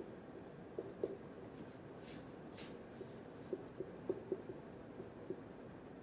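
Dry-erase marker writing on a whiteboard: a series of faint, short squeaks and scratchy strokes of the felt tip as words are written.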